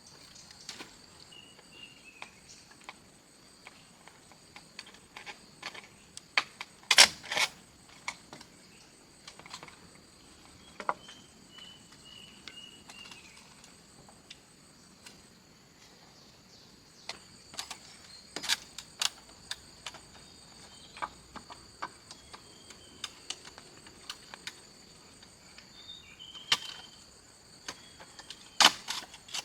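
Steady high-pitched insect drone with a few short chirping calls, broken by scattered sharp clicks and knocks. The loudest knocks come about seven seconds in and again near the end.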